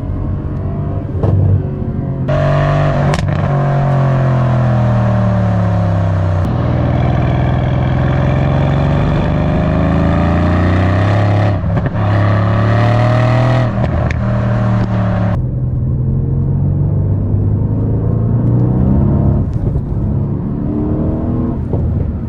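Mercedes-AMG C63 W205's 4.0-litre twin-turbo V8 running under load, its note rising and falling through gear changes, with a few sharp cracks along the way.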